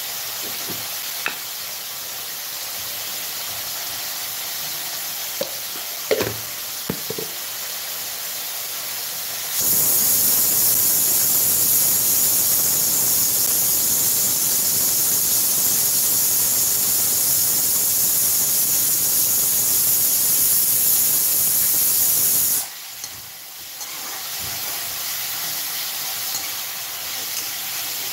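Sliced bitter gourd sizzling in oil in an iron kadai, with a few light spatula clicks against the pan in the first seven seconds. About ten seconds in, a much louder, steady hiss sets in. It lasts about thirteen seconds, then drops back to the softer sizzle.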